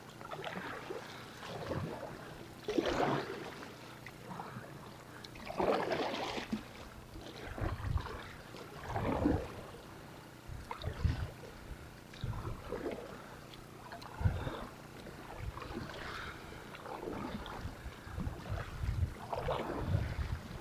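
Kayak paddle strokes in the water, a swishing splash every two to three seconds, with a few low knocks in between.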